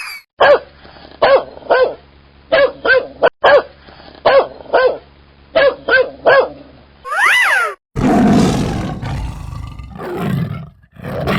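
Cartoon animal sound effects: a quick run of about a dozen short pitched animal calls, a brief falling whistle, then a loud, long animal roar.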